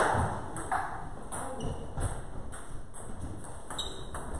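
Table tennis rally: a plastic ball clicking off rubber paddles and bouncing on the table in a steady series of sharp ticks, about one every two-thirds of a second, the loudest at the very start.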